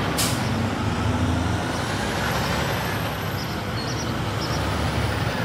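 Diesel engines of tractor-trailers running as they pass in slow traffic, with a short air-brake hiss just after the start.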